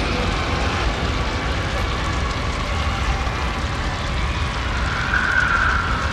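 Horror sound-effect ambience: a continuous low rumbling drone with faint wavering wail-like tones above it, one wail coming through more clearly about five seconds in.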